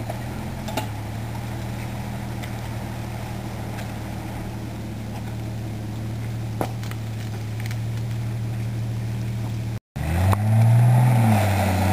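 Vehicle engines idling steadily. After a brief break about ten seconds in, it is louder, and an engine revs up and back down once as the SUV takes the strain of towing the stuck pickup out of the mud.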